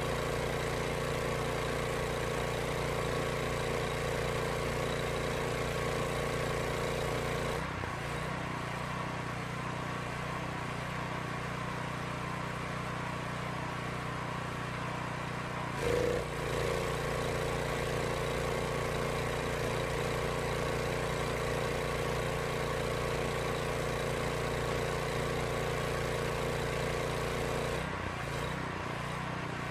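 Kohler engine on a Mi-T-M pressure washer running at high speed with the pressure set to maximum, working under the load of the pump while spraying, its governor opening the throttle wide. About eight seconds in the trigger is released and the sound drops and changes. It picks up again with a brief surge around sixteen seconds as spraying resumes, then drops again near the end.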